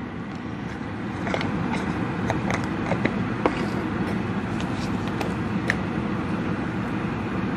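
Warm ghee with Kashmiri chilli powder crackling lightly in a small pan: a few scattered pops over a steady hiss that grows a little louder about a second in.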